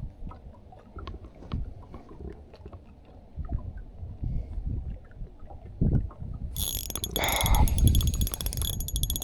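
Ultralight spinning reel being cranked, with small clicks and low handling knocks. About six and a half seconds in, a louder scuffling noise with a steady high hiss starts suddenly.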